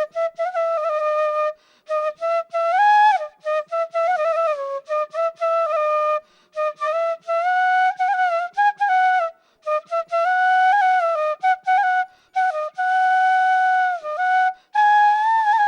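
A solo wind instrument playing a slow, single-line melody in short phrases separated by brief pauses, with some notes sliding into the next and a long held note near the end.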